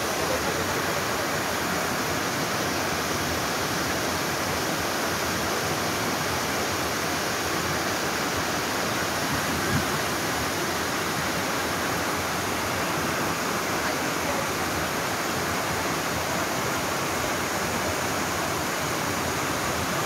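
Small waterfall cascade: water rushing down a smooth rock slab into a pool, a steady, even rush of white water.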